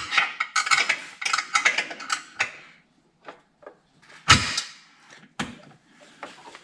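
Hands working rubber hoses and plastic fittings in a car's engine bay while fitting an oil catch can: a couple of seconds of scraping and rustling, then scattered clicks, with a sharp knock about four seconds in and a smaller one about a second later.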